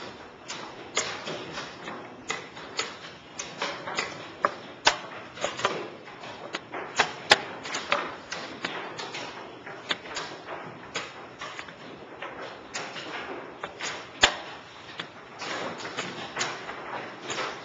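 Quick, irregular clacks and knocks of plastic chess pieces being moved and set down on a roll-up vinyl board, with chess clock presses at blitz pace, two or three a second, a few of them sharper and louder.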